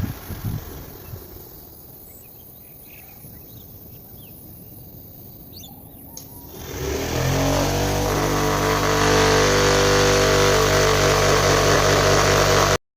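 Faint outdoor background with a few bird chirps, then about seven seconds in the bamboo table fan's 12 V DC motor starts. It spins up with a rising whine into a steady whirring hum, and cuts off suddenly near the end.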